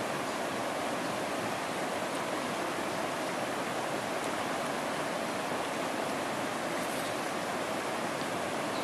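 Steady rushing of a stream flowing over rocks, an even unbroken wash of water noise.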